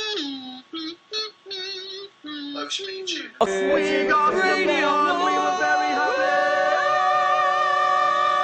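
Men's voices making a string of short, high-pitched squeaky vocal noises, then, about three and a half seconds in, several voices break into a loud, sustained harmonised sung note that holds to the end.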